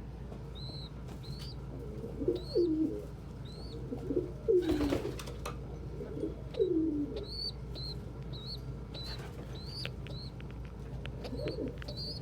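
Pigeons cooing in low, falling notes several times, over a steady run of short, high peeps from young pigeons. A brief burst of wing flapping comes about five seconds in.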